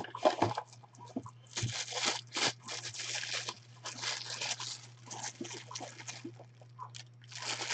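Clear plastic bag around a baseball crinkling as it is handled, in irregular rustling bursts, with a steady low hum underneath.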